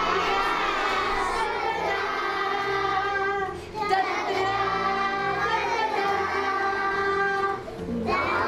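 A song sung by children's voices in long held notes, in two phrases with a brief break between them, over instrumental backing.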